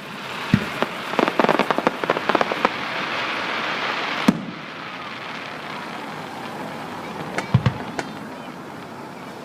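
Fireworks going off: a bang, then a quick run of crackling pops over a steady hiss that ends with a sharp bang about four seconds in, followed by a few more bangs near the end.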